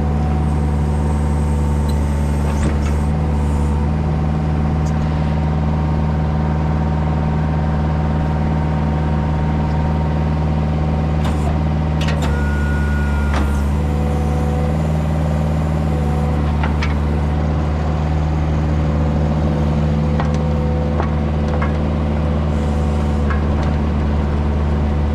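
Tractor engine running steadily at a constant speed, with a few light clanks about halfway through.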